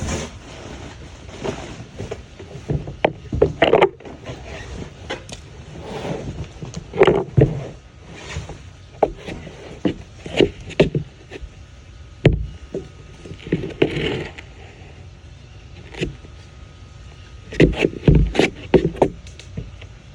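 Unpacking a boxed toilet by hand: irregular sharp knocks and clicks with scraping and rustling of packaging between them, with a dense cluster of knocks near the end.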